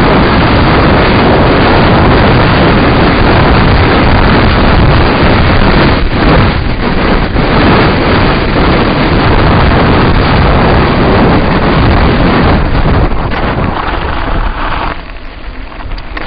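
Loud wind buffeting the microphone of a camera on a mountain bike descending a rough gravel track at speed, mixed with the tyres and bike rattling over the stones. The noise drops off about fifteen seconds in.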